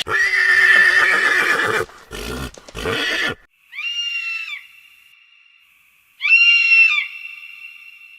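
Wild animal calls: a loud, harsh call lasting about two seconds, two shorter bursts, then two identical high-pitched calls a couple of seconds apart, each followed by a thin, lingering high tone.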